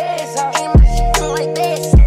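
Hip hop backing music: held tones with crisp hi-hat clicks, and a deep bass that comes in about three-quarters of a second in and hits again near the end.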